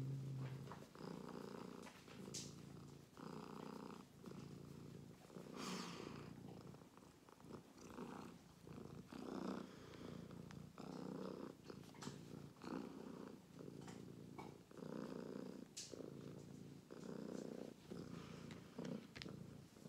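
Tabby-and-white cat purring close to the microphone, the purr swelling and fading about once a second with its breathing.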